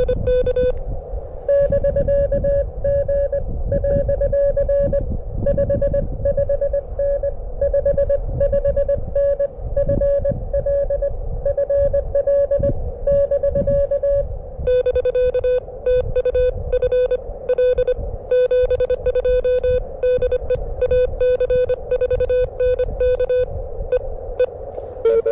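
Morse code (CW) tones from a ham radio transceiver, two stations taking turns: one tone keys out a message for about 13 seconds, then a slightly lower-pitched tone answers for the rest. Wind rumbles on the microphone underneath.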